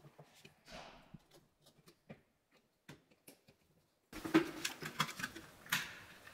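Faint, scattered clicks and taps of hands handling a glass bottle lamp and its plastic lampholder, with a busier run of clicks about four seconds in as the plywood base is handled.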